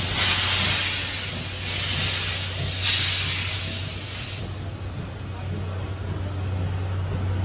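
Steam-hauled SL train venting: three loud hisses, each over a second long, over a steady low hum.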